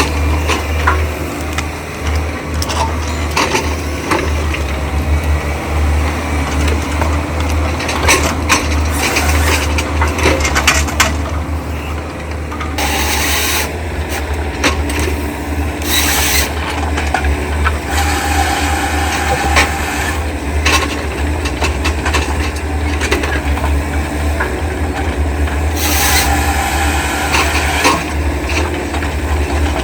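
Diesel engine of heavy logging machinery running steadily under the work, with irregular knocks, creaks and scraping of logs being handled.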